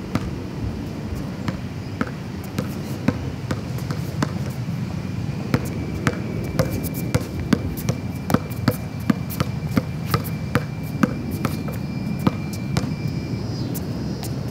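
Basketball bounced on concrete: a run of sharp bounces that come quicker and more evenly through the middle stretch, about two to three a second.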